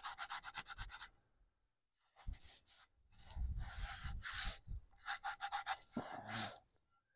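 A bag and the gear in it being handled: a quick zip-like rasp at the start, then rustling and rummaging, and another rasp about five seconds in, followed by a short breath.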